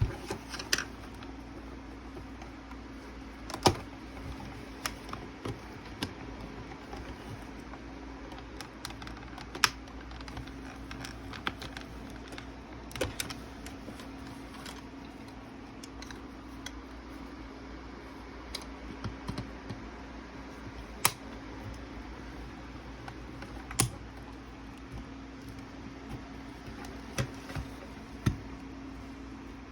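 Scattered small clicks and taps of hands and tools working on a Santa figure being taken apart for repair, a few louder knocks among them, over a faint steady hum.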